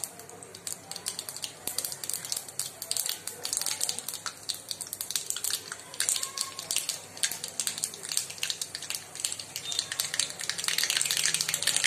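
Mustard seeds popping and crackling in hot oil in a kadhai. The pops are scattered at first and grow denser, turning into a steady spluttering crackle near the end.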